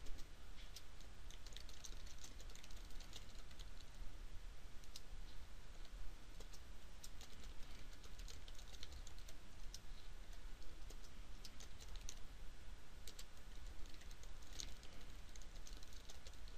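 Computer keyboard typing in quick runs of key clicks broken by short pauses, over a faint steady hum.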